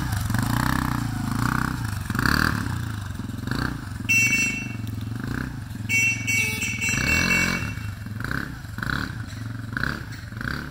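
Small engine of a Polaris youth ATV running as it rides off, fading with distance. Two brief high-pitched tones sound about four and six seconds in.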